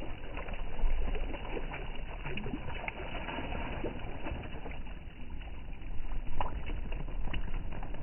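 Lake water splashing and lapping at the edge, with a hand scooping and splashing it near the start, over a steady low rumble.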